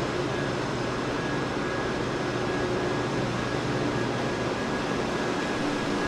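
Steady, even hiss with a faint low hum underneath and no distinct events.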